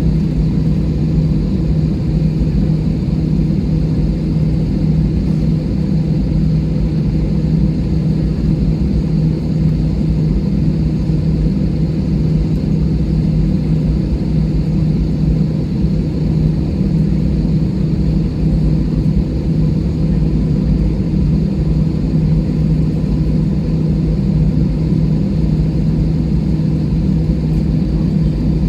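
Steady low drone of an airliner cabin on the ground, with the jet engines running at idle and a constant hum that does not change.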